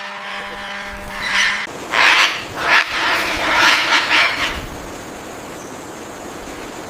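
Blue-and-gold macaws squawking: a cluster of harsh, raspy calls a little over a second in, lasting about three seconds.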